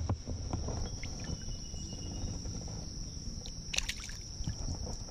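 Water splashing and hand noise as a small rock bass is let go into a creek, with one short sharp splash about four seconds in. A steady high insect drone runs throughout.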